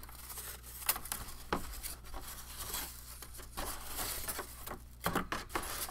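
Thin laser-cut balsa wood sheets handled in a cardboard kit box: light sliding, rustling and a few soft knocks as the sheets are shifted against each other, over a low steady hum.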